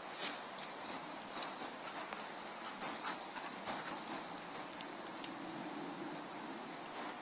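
A dog mouthing and chewing a stick among dead leaves: faint rustling with scattered small cracks and clicks, the sharpest about three seconds in and again just under four seconds in.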